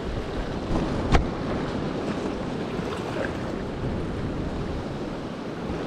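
Sea washing against a rocky shore with wind buffeting the microphone, a steady rushing noise. A single sharp click stands out about a second in.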